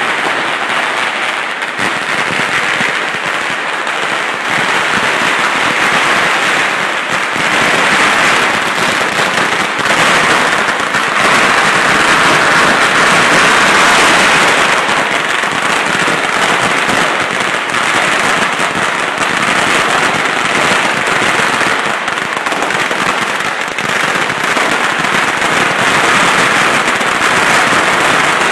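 Firecrackers going off on the street pavement in a long, unbroken run: a dense rattle of rapid small bangs that never pauses and is loudest around the middle.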